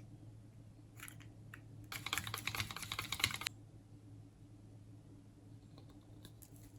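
A utensil clicking rapidly against a dish for about a second and a half, starting about two seconds in, over a faint steady hum.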